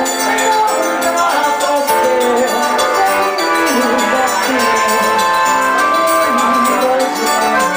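Live forró band playing: accordion melody over guitar, zabumba drum and hand percussion, with a steady dance rhythm.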